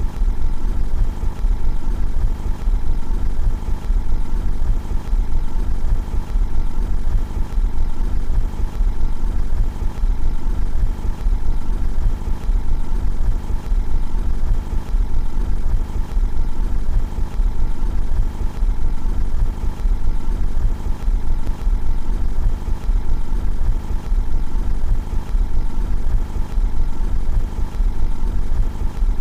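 Car engine idling steadily, heard from outside the car.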